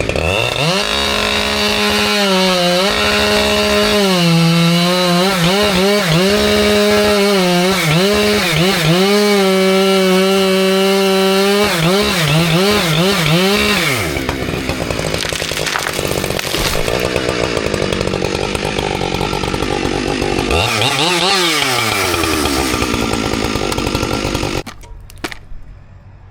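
Husqvarna 592 XP two-stroke chainsaw held at high revs under load while cutting through a large poplar, its note sagging and recovering several times. About halfway through it turns to a rougher running with one drop and rise in revs, and near the end it cuts off.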